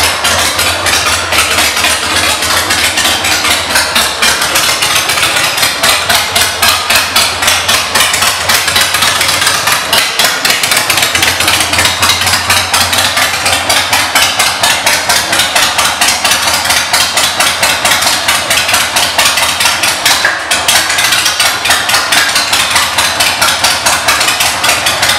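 Harley-Davidson Sportster 1200's air-cooled 1200 cc Evolution V-twin idling, with an even pulsing beat throughout.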